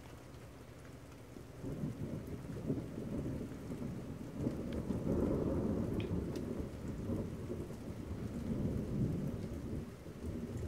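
Long rolling thunder rumble that swells about two seconds in, is loudest around the middle and eases off near the end.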